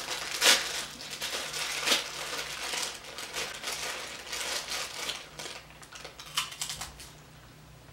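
Crinkly plastic wrapper on a sleeve of crackers being torn open and rustled, then a few sharp crunches about six seconds in as a cracker is bitten.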